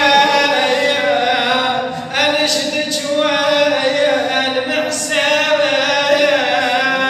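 A man's voice singing a religious recitation unaccompanied, holding long drawn-out notes with short breaks between phrases.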